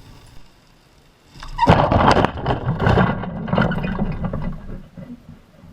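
A felled date palm crashing down: a sudden loud crash about a second and a half in, then about three seconds of crackling and thudding as the fronds and trunk hit the ground, tailing off near the end.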